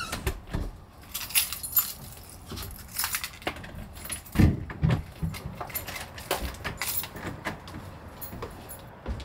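A bunch of keys jangling and clinking, with two heavy thumps about four and a half seconds in.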